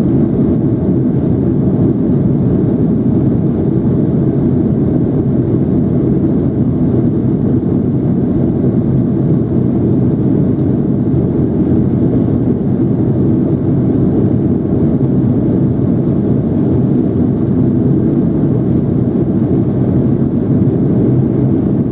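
Steady cabin noise inside a Boeing 757-200 climbing after takeoff: a loud, even drone of engines and airflow with no change.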